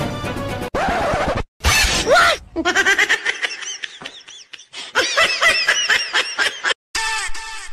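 A string of short inserted sound effects that start and stop abruptly, with gaps between them: a brief noisy crash-like burst about a second in, then a few seconds of repeated rising-and-falling laughter.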